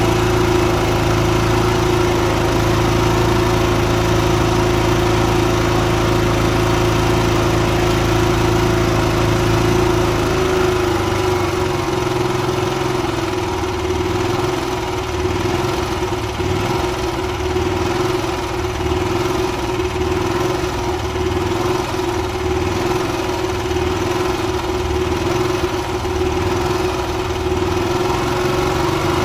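Honda EB5000i inverter generator engine running steadily after its carburetor was cleaned. About ten seconds in, its low hum changes to a regular pulsing of roughly one beat a second while the steady mid tone carries on.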